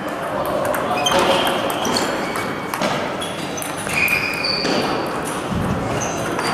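Celluloid table tennis balls clicking off bats and tables in a large hall with several matches in play. The hits are irregular, each with a short ringing ping, and there is a low thud near the end.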